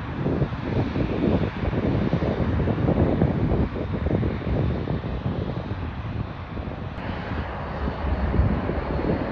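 Boeing 787-10's twin turbofan engines running at taxi power as the airliner rolls past, a steady jet noise with a faint high whine, buffeted by gusts of wind on the microphone.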